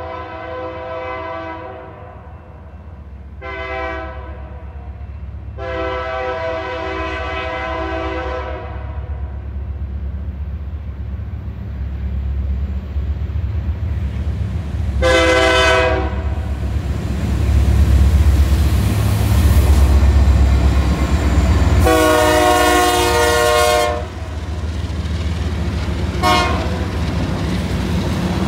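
CN freight Train 492, two diesel locomotives led by CN 5696, approaching and passing. The lead locomotive's air horn sounds a series of long and short blasts. Under the horn a low rumble builds, is loudest as the locomotives go by about two-thirds of the way in, then carries on as freight cars rolling past on the rails.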